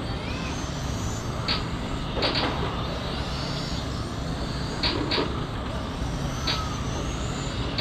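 Radio-controlled cars racing round a small pavement oval: faint high motor whines that rise and fall as the cars pass, over a steady low rumble. There are several short sharp hisses along the way.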